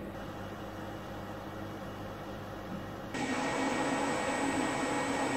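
Steady whir and hum of cooling fans and electrics from a fiber laser cutting machine's laser source and control cabinet. About three seconds in it suddenly steps up louder and hissier, then holds steady.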